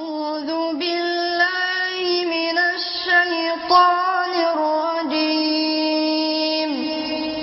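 Music with a high singing voice holding long notes that step to new pitches every second or so, sliding down near the end.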